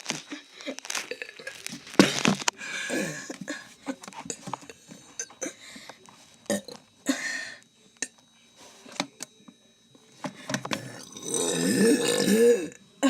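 A person burping over and over: a string of short burps, then a long, drawn-out burp near the end.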